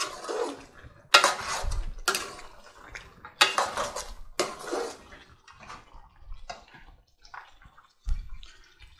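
A metal slotted spoon scraping and clattering against the cooking pot while thick lamb hariyali is stirred and fried, in sharp strokes about once a second for the first five seconds, then softer stirring. A dull knock near the end.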